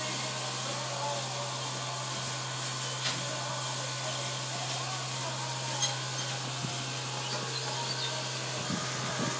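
Steady hum and hiss of dairy machinery running, with a couple of faint clicks.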